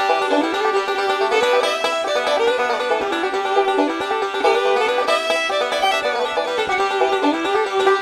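Instrumental background music, a lively tune with many quick notes.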